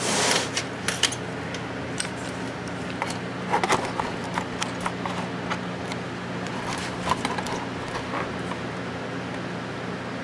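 Scattered light clicks and taps of handling and footsteps, with a few louder knocks about three and a half seconds in, over a steady low electrical hum.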